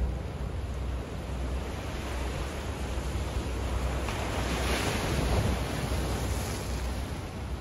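Small waves washing against shoreline rocks, with one wash swelling louder from about four to six and a half seconds in. Wind on the microphone gives a steady low rumble underneath.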